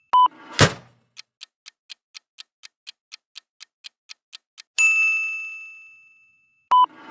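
Quiz countdown timer sound effect: a clock ticking about four times a second, ending in a ringing bell ding that fades out. A short two-tone beep and a whoosh come just before the ticking and again near the end.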